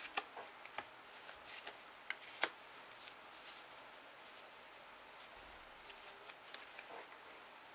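Trading cards and a foil booster pack handled by hand: sparse, faint card clicks and wrapper rustles, with one sharper click about two and a half seconds in.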